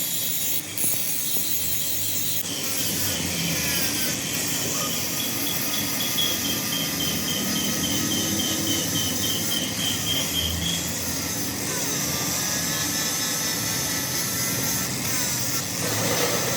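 Metal-cutting machine running steadily on steel, with a constant hiss of cutting, a thin whine that shifts in pitch a few times and a rapid pulsing tone for several seconds in the middle.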